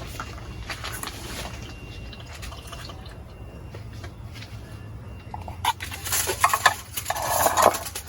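Food being spooned out for serving: wet scraping and plopping, with a loud burst of clattering in the last two seconds or so.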